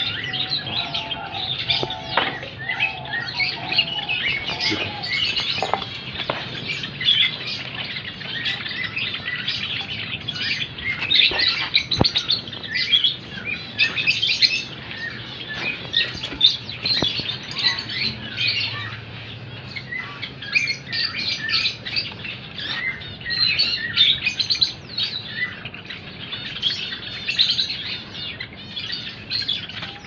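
A flock of caged Java sparrows chirping continuously, many short calls overlapping, with a few light knocks among them.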